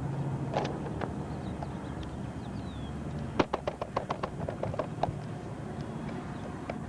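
A soccer ball tapped quickly with the feet on grass while dribbling: a run of about ten sharp taps, roughly six a second, fading in strength, over a steady outdoor background noise.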